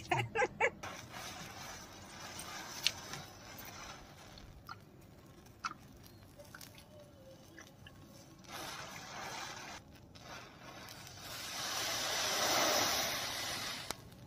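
Wooden matchsticks catching fire one after another, a soft crackling hiss with a few sharp clicks, swelling into a louder, longer hiss near the end as the packed cluster of matches flares up. A few short sharp sounds come right at the start.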